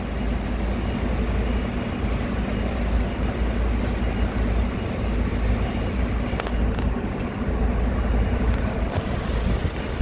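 Fire engine's engine idling with a steady low rumble.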